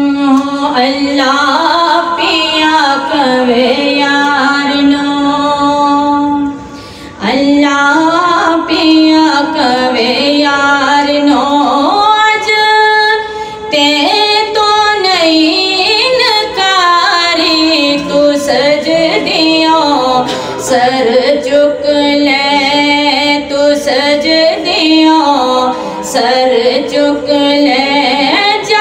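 A woman singing a naat (Urdu devotional poem in praise of the Prophet) solo into a microphone, in long, drawn-out melodic lines with a short breath break about seven seconds in.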